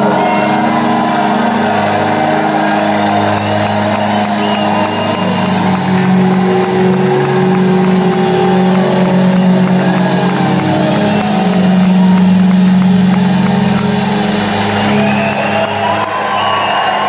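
Live rock band holding one loud, sustained chord on electric guitars, bass and keyboard as a song draws to a close, with the crowd cheering under it.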